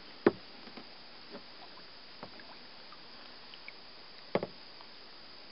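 Two sharp knocks about four seconds apart on a small fishing boat, with a few lighter clicks in between over a steady faint hiss.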